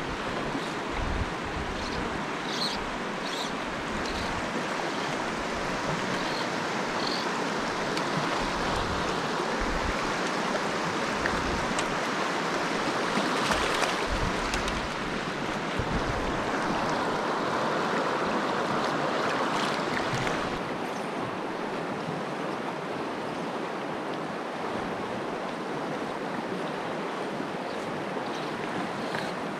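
Shallow mountain stream rushing steadily over rocks and cobbles, heard close to the water.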